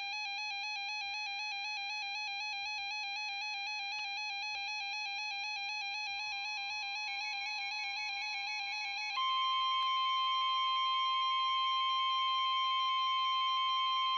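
Electronic alert tone warbling rapidly for about nine seconds. Then the steady, louder 1050 Hz NOAA Weather Radio warning alarm tone sounds, the signal that comes before a warning broadcast, here a tornado warning.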